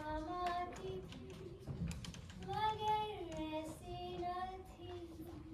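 A high voice singing a slow melody, long held notes gliding between pitches and no clear words, with faint scattered clicks underneath.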